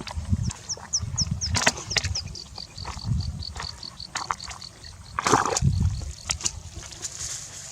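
A high-pitched animal call: a few quick falling chirps, then a long run of short, even pips, about four a second, that thin out near the end. Water splashes and knocks can be heard under it, with a louder splash about five seconds in.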